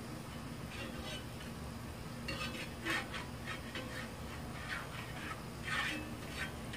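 A metal slotted spatula scraping and stirring across a flat nonstick frying pan, sautéing chopped pieces in oil, in irregular strokes with louder scrapes about three seconds in and near the end.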